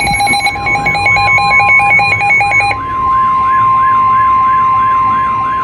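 Several emergency alert tones sounding at once: a steady single-pitch warning tone with a rapidly warbling electronic siren over it. A pulsing, beeping alarm also sounds and stops about halfway through.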